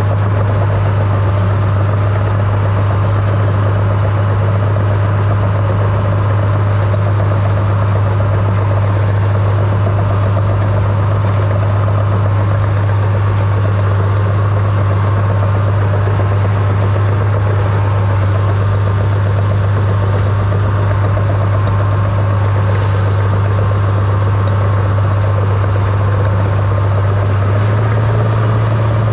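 Small crawler dozer's diesel engine running steadily, heard from the operator's seat, while the dozer pushes snow with its blade. The engine note steps up slightly in pitch near the end.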